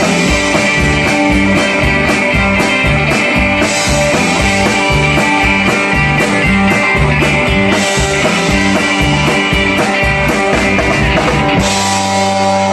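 Live rock band playing: electric guitar, electric bass and drum kit driving a steady beat. Near the end the drums stop and a final chord is left ringing.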